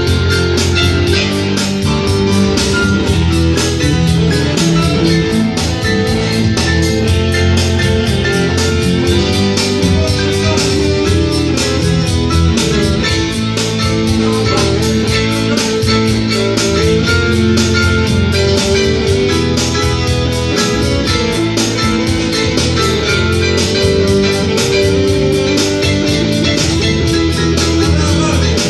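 Guitar-led music played live, running continuously at a steady level.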